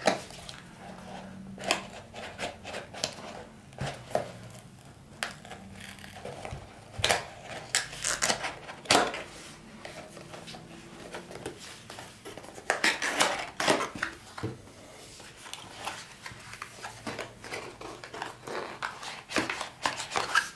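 A cardboard microphone-kit box being opened and its packaging handled: irregular rustles, scrapes and clicks of cardboard and packing, busiest about a third of the way in and again past the middle.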